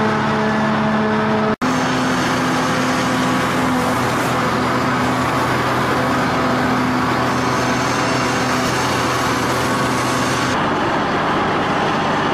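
Cutter suction dredge machinery running under test with a loud, steady mechanical hum. The sound breaks off for an instant about a second and a half in, and it changes near the end when the dredge's cable winches are run.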